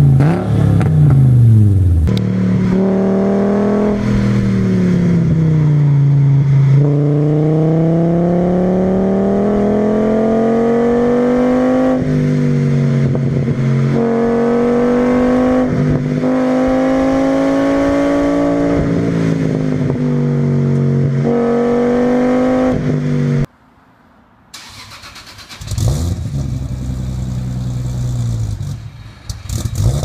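Volkswagen Golf Mk4 2.3-litre VR5 20-valve five-cylinder engine on a drive. Its pitch climbs and falls as the car speeds up and slows, stepping down sharply at several gear changes. A falling rev comes before the drive, and the sound cuts out briefly about three-quarters of the way through.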